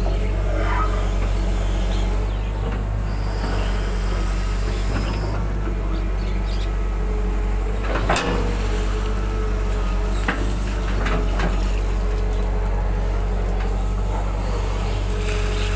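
Excavator's diesel engine running steadily, with a sharp knock about halfway through and a lighter knock about two seconds later.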